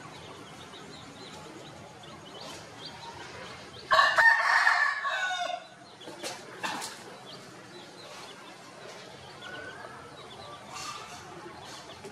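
A rooster crows once, loudly, about four seconds in, the call lasting about a second and a half and falling away at the end.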